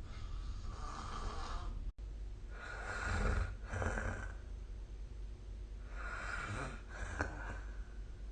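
A sleeping person snoring: about five noisy breaths in a row, each under a second long, the loudest around three seconds in. The sound briefly cuts out about two seconds in.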